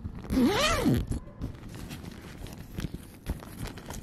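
A brief loud vocal call that rises and then falls in pitch, followed by scattered light knocks and clicks.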